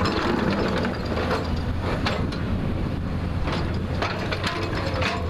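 JCB backhoe loader's diesel engine running steadily under work, with scattered sharp knocks and clanks several times through.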